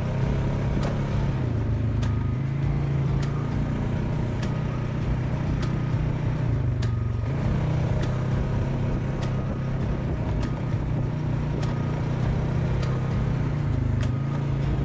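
ATV engine running at a steady speed while riding a dirt trail, with light clicks and rattles scattered through.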